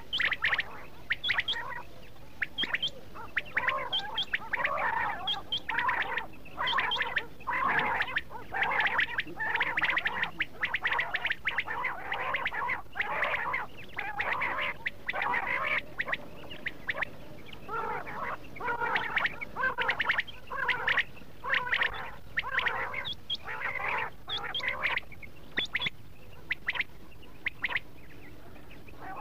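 Quail calling over and over in dense runs of short notes: a quail call recording of the kind played to lure quail for hunting. The calls thin out near the end.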